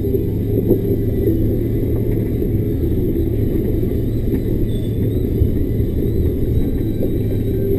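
Loaded timber lorry heard from inside its cab: a steady diesel engine drone with a low rumble from the truck on the move, holding even throughout.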